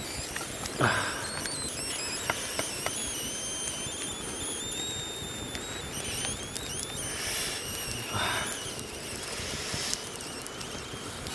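A pot of fish and lemongrass soup over a wood fire, stirred and turned with chopsticks: a steady hiss with a few light clicks of the chopsticks against the pot. High, thin whistling calls waver over it in the first half.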